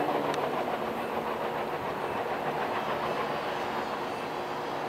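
CSX diesel locomotives running, a steady engine drone with their wheels rolling over the rails.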